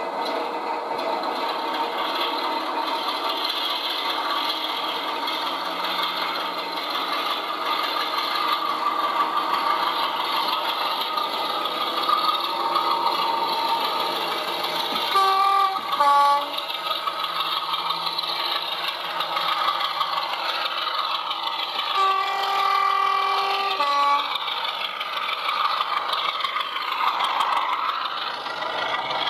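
Sound-fitted 00 gauge model diesel train, its on-board speaker playing a steady diesel engine sound as it approaches. Its two-tone horn sounds twice, high note then low: a short blast about halfway through, then a longer one with the high note held about two seconds. The train passes close by near the end.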